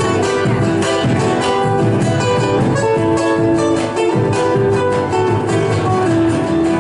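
Instrumental break in an Argentine folk song: acoustic guitar strumming in a steady rhythm under a plucked melody line.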